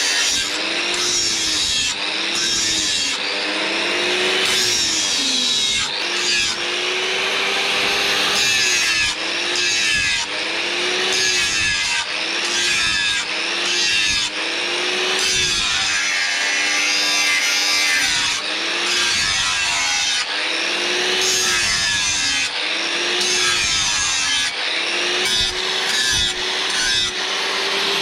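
A hand tool rasping back and forth in even strokes, about one a second, each stroke with a pitch that rises and falls.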